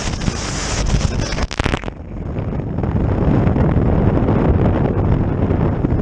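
Heavy wind buffeting the microphone on a jet boat running fast through wind and chop, mixed with the rush of water and spray. About two seconds in, the bright hiss suddenly falls away and a dull, low buffeting takes over.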